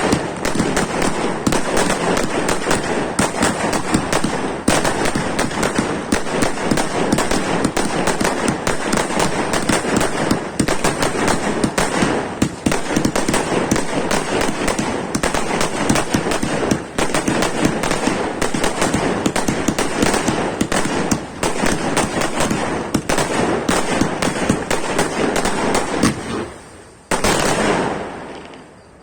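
Fireworks display going off in a dense, continuous barrage of rapid bangs and crackles, thinning out and fading in the last few seconds.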